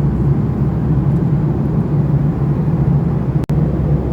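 Steady low drone of a jet airliner's cabin in flight: engine and airflow noise. The sound cuts out for a split second near the end.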